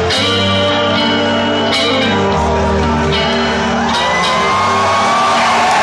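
Melodic death metal band playing live in a concert hall, recorded from the audience: sustained distorted guitar chords with three cymbal crashes, and crowd shouts growing louder near the end.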